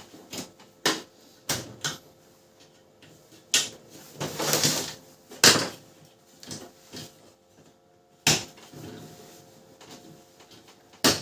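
A series of sharp plastic clicks and knocks, with a longer scraping rustle about four to five seconds in, from parts of a Canon LBP 6030 laser printer being handled and fitted together during reassembly.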